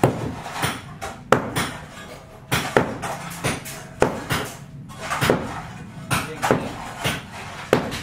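Irregular series of sharp knocks, about two a second, each with a short ring: hand tools striking at a building site.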